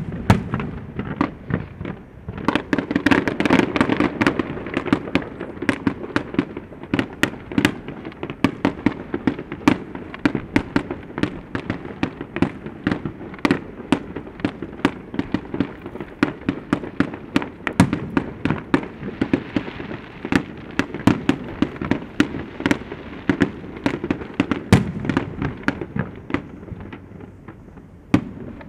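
Fireworks display: aerial shells bursting in quick succession, a dense run of sharp bangs and crackles several times a second, with heavier booms now and then.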